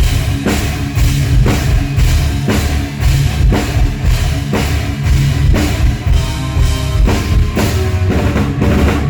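Rock band playing loud at a sound check: a drum kit with heavy bass drum and cymbal hits about twice a second over bass and guitar.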